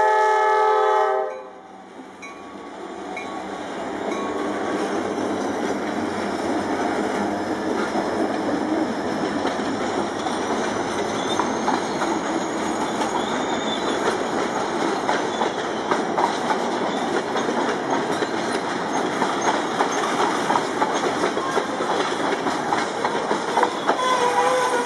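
Horn of freight locomotive MEC 353 blowing and cutting off about a second in. Then the train's freight cars, a flatcar and tank cars, roll past with a steady rumble of steel wheels on rail and a clatter of irregular clicks over the rail joints.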